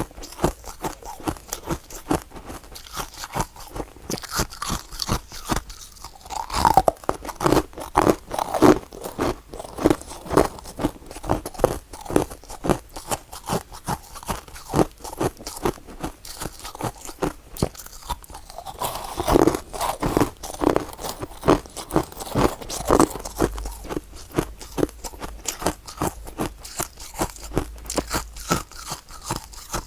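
Close-up crunching and chewing of soft, powdery freezer frost, the bites following one another several times a second with louder clusters of crunches in places.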